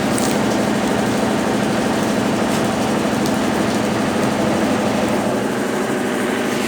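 Consul Facilite 10 kg washing machine (CWC10) in its wash stage, its motor and agitator running steadily with a strong, even hum and churning noise from the laundry load.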